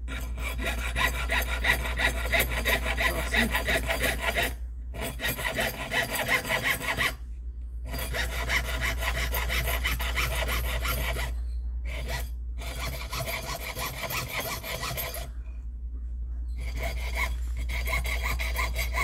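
Jeweler's saw blade cutting through copper sheet in fast, even back-and-forth strokes, with several short pauses, as the excess metal is trimmed from a die-struck ring blank.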